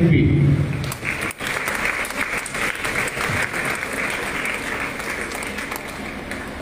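Audience applauding, starting about a second in and slowly dying down.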